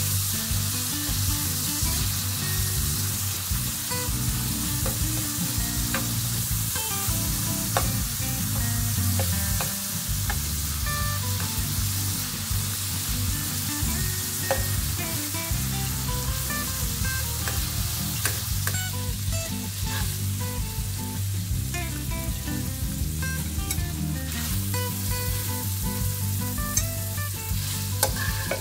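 Thin beef strips sizzling steadily as they fry in hot oil in a nonstick skillet, with scattered clicks and scrapes of a metal fork turning them against the pan.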